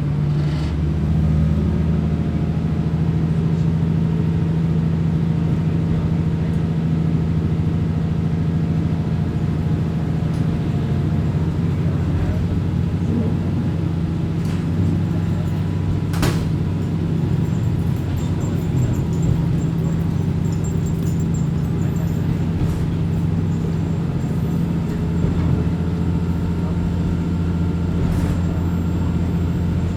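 Diesel railcar running, heard from inside the cabin: a steady low engine drone with a few sharp clicks over it.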